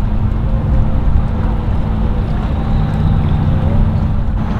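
Boat outboard motor idling with a steady low rumble.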